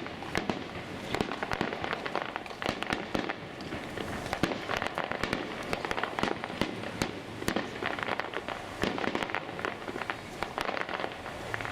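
Fireworks display: a dense, irregular run of sharp pops and bangs from bursting shells, one after another without a break.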